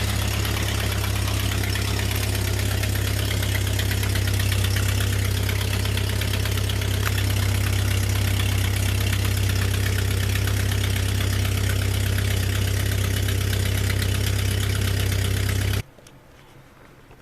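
Jeep four-cylinder engine idling with a loud exhaust leak: the cracked pipe is patched with stainless repair wrap and JB Weld but it is still kind of loud, and the owner suspects a leak up at the head, at the exhaust manifold gasket. The sound stops abruptly near the end.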